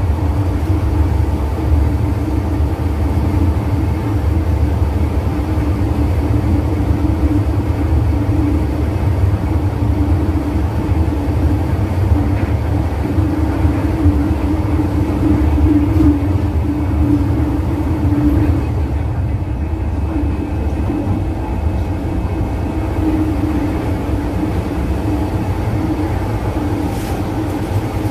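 MTR M-Train (Phase 2A) heard from inside the carriage while running: a steady rumble of wheels and running gear under a steady traction-motor hum. It eases slightly in the second half as the train slows into a station.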